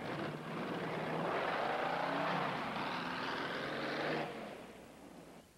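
Dune buggy engine revving hard as the buggy speeds away across a dirt yard. It fades out after about four seconds.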